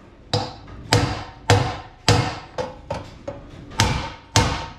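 Hammer driving a small punch against the hex screws in the end casing of an AMF 82-30 pinsetter's steel front roller: a series of about eight hard strikes, roughly half a second to a second apart, each ringing out and dying away. The pounding presses the casing around the screws to loosen screws that have sat in place a long time.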